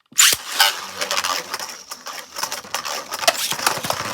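Two Beyblades launched from ripcord launchers, with a loud rip just after the start, then spinning and clashing in a plastic stadium: a fast, uneven clatter of hits over a steady whirr.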